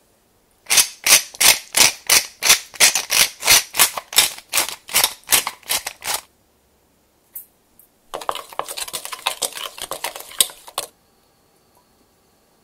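Sauce being mixed with a utensil in a small stainless steel bowl: rhythmic scraping strokes at about three to four a second for several seconds. After a short pause comes a faster, denser stretch of stirring that stops a little before the end.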